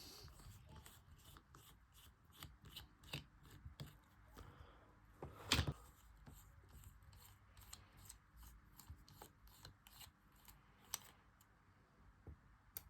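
Faint small clicks and scrapes of a precision Phillips screwdriver working the two bottom screws out of an iPhone 3GS, with a sharper click about five and a half seconds in.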